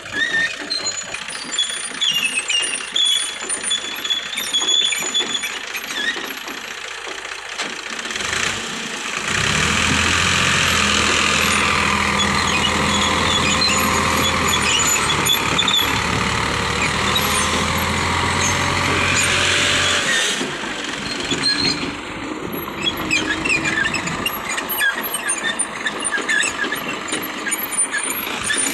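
Crawler tracks of a CAT excavator squeaking and clanking as it travels. About nine seconds in, a loud, steady diesel tractor engine takes over for about ten seconds, working under a full trolley load of earth. Squeaking and rattling follows near the end.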